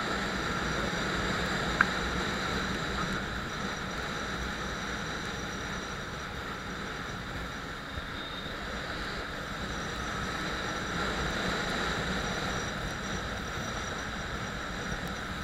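Motorcycle riding at steady speed: continuous wind and road noise over the running engine. There is one short click about two seconds in.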